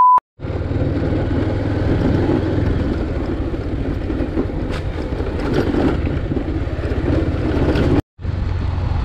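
Motorcycle engine running steadily while riding, with road rumble. A loud test-tone beep cuts off at the very start, and the sound drops out briefly about eight seconds in.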